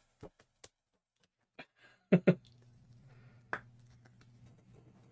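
A few light clicks and taps of a card in a plastic top loader being handled and set upright in a stand, two clicks close together a little over two seconds in. A low steady hum starts at about the same time.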